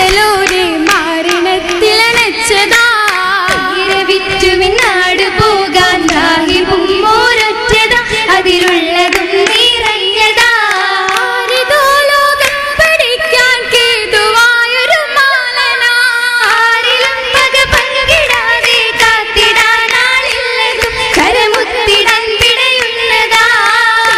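Girls singing an Oppana song, with rhythmic hand clapping from the dancers.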